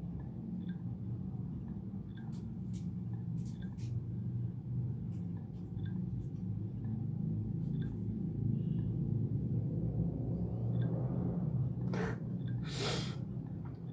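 Steady low hum of a small room with faint ticks about once a second, and near the end two short, breathy bursts of a man's laugh.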